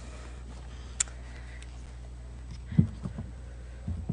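Quiet meeting-room tone with a steady low electrical hum. A single sharp click comes about a second in, and a short dull thump comes a little before three seconds.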